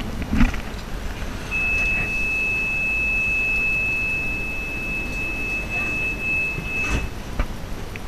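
Interior of a light-rail tram standing at a stop, with a low steady rumble. A single steady high electronic beep starts about a second and a half in and holds for about five seconds, then a sharp click follows near the end.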